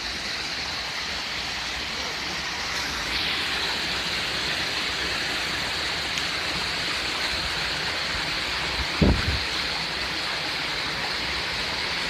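Steady rushing and splashing of water tumbling over small rocky cascades in a hot spring stream. About nine seconds in there is a brief low thump.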